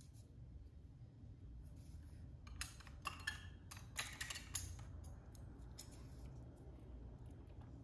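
Faint, scattered small plastic clicks and taps of mechanical-keyboard keycaps being handled and set down one by one while they are sorted into order.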